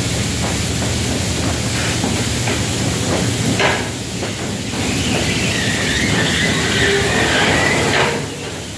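Automatic tunnel car wash running: a steady hiss of water spray and cloth washers over a low hum of motors and the conveyor, with a few clicks and a faint high-pitched whine that comes in about halfway through.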